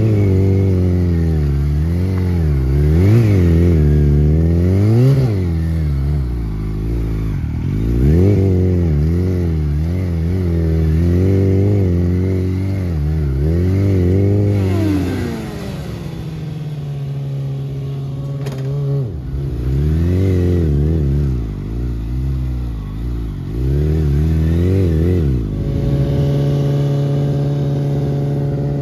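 Stunt motorcycle engine revving up and down again and again while the bike is held in wheelies. It settles from about halfway, rises a few more times, and runs at a steady higher pitch near the end.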